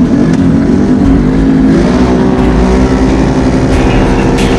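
Can-Am Renegade XMR 1000R's V-twin engine accelerating hard on pavement: the note wavers, climbs about two seconds in, then holds steady at high revs, with wind rumble on the microphone.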